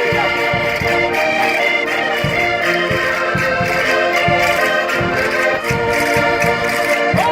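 Concertinas (Portuguese diatonic button accordions) playing a lively Minho folk-dance tune in held, reedy chords, with low thumps keeping the beat underneath.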